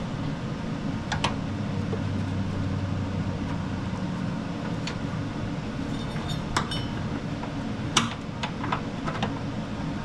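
A few light metallic clicks and taps as a bolt and belt keeper are worked into place by hand under a riding mower, over a steady low background hum.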